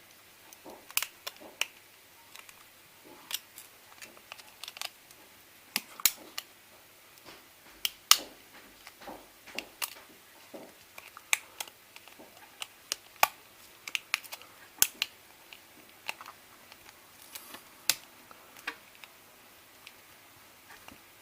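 Irregular sharp clicks and light taps, roughly one or two a second, from the small parts of a first-generation iPod Nano being handled and fitted back together.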